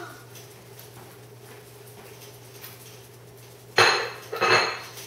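Two loud clattering knocks near the end, about two-thirds of a second apart, each ringing briefly, over a steady low room hum.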